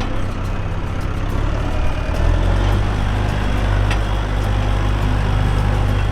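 A vehicle engine running steadily, its low rumble growing heavier and louder about two seconds in.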